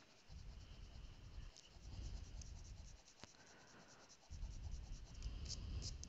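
Zebra M301 mechanical pencil writing on spiral notebook paper: three short, faint stretches of graphite scratching, with a single click a little past the middle.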